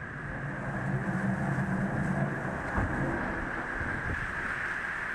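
Steady wind and ship noise on an aircraft carrier at sea: a constant hiss with a faint low hum in the first couple of seconds, and no gunfire.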